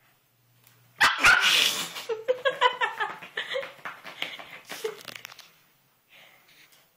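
Pomeranian puppy barking in a quick string of short yaps while it attacks a bath mat. It starts with a loud burst about a second in and dies away about five seconds in.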